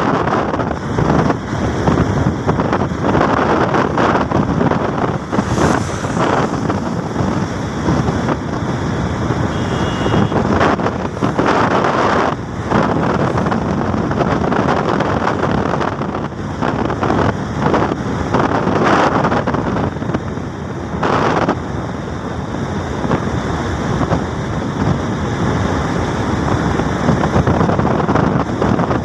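Wind buffeting the microphone, mixed with engine and tyre noise from a vehicle moving at speed on a road, swelling and dipping unevenly.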